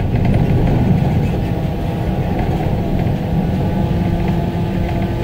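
Ride noise inside the tiller cab of a moving tractor-drawn aerial ladder truck: a steady low rumble from the trailer's tyres and running gear, with light rattles.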